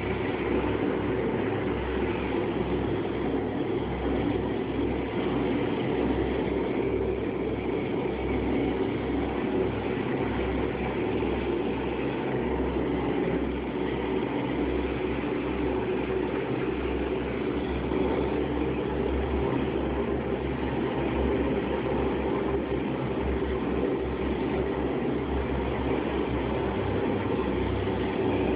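Steady, unbroken hum of workshop machinery running, recorded on a low-end mobile phone, so it sounds dull with no high end.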